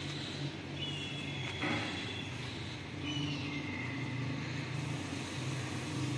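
Street ambience: a steady low engine hum, with a few short, falling high bird chirps about a second in and again about three seconds in, and a brief knock just before the two-second mark.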